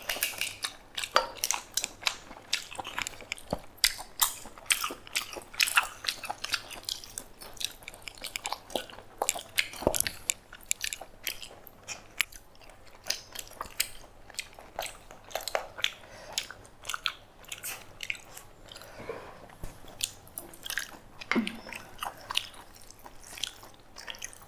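Close-up eating: chewing with many sharp, irregular crunches of crisp papad (fried lentil wafers) being bitten and chewed.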